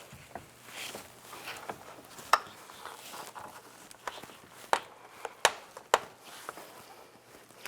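A few sharp clicks and knocks over light rustling as a replacement tow mirror and its wiring harness are handled and the mirror's studs are lined up against the door.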